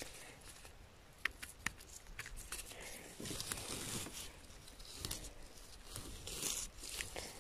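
Faint rustling and crackling of dry moss and lichen as chanterelles are picked and trimmed by hand with a knife, with a couple of sharp clicks about a second in.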